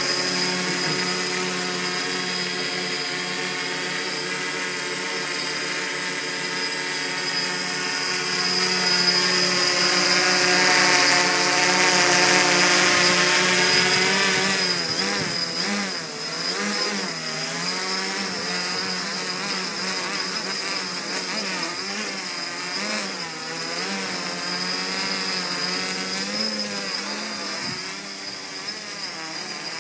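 Quadcopter's brushless motors and propellers buzzing in flight, a whine of several tones together. It holds steady at first, grows louder for a few seconds near the middle, then wavers up and down in pitch as the motor speeds change to hold and move the craft.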